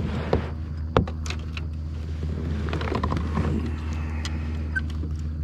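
A steady low hum, with two sharp clicks about a second apart near the start and some light rattling as a spinning rod and reel are handled in a kayak.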